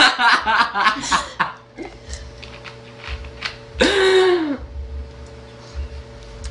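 A young girl's quick, broken laughter, then one short, loud belch about four seconds in, its pitch rising and falling.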